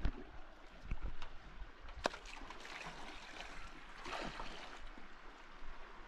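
River water flowing in a steady rush, with a few sharp knocks, the sharpest about two seconds in.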